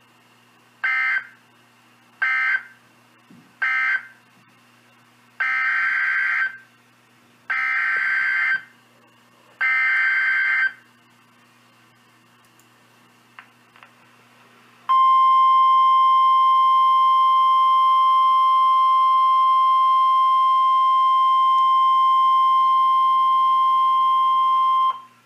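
EAS SAME digital data bursts on NOAA Weather Radio: first three short buzzy end-of-message bursts closing the tornado warning, then three longer header bursts announcing the next warning. About fifteen seconds in, the steady 1050 Hz NOAA Weather Radio warning alarm tone sounds loudly for about ten seconds and cuts off abruptly, signalling that a warning message follows.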